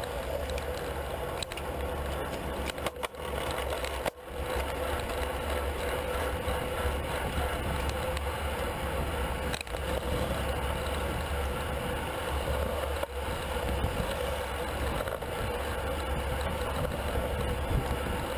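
Wind rushing over the microphone of a handlebar-mounted camera on a road bike riding at speed in a racing pack, a steady rumbling rush with road and tyre noise under it.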